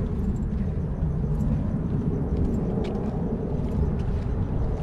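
Steady low outdoor rumble, with a few faint ticks.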